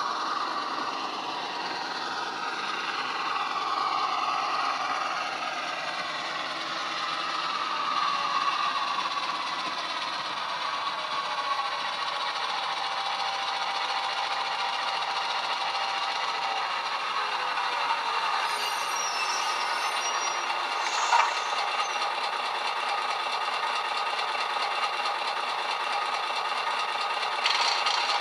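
Model locomotive's ESU LokSound DCC sound decoder playing an EMD 8-567 diesel engine running under way, heard through the model's small on-board speaker. A short sharp sound stands out about 21 seconds in.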